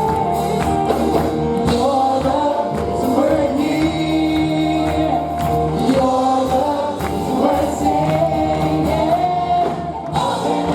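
Congregational gospel worship music: voices singing together over a band, with a steady beat.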